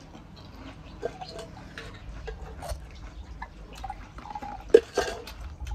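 Pani puri being eaten close to the microphone: scattered small crunches, clicks and wet mouth sounds from the crisp shells and their spiced water. A sharper crack comes about a second before the end.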